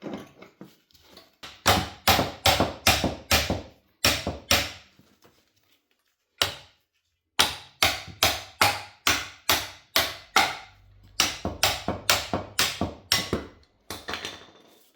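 Repeated sharp hammer blows on metal on a Mini Cooper R56's rear brake caliper, at about three a second, in two runs with a pause between them and one lone blow in the pause, as the caliper is knocked free.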